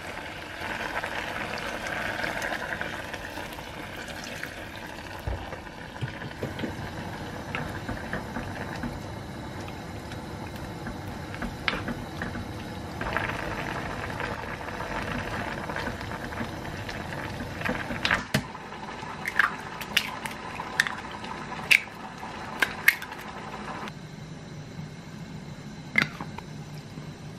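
Kimchi and pork cooking in a pot: stirred and stir-fried with a spatula, then simmering with a steady bubbling. Sharp clinks of utensils come in the second half, the last a chopstick tap against a ceramic mug.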